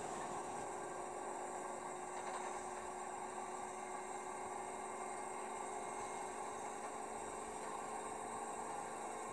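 Bosch Serie 8 front-loading washing machine in its spin cycle, running at a steady speed: an even hum with a faint, constant whine.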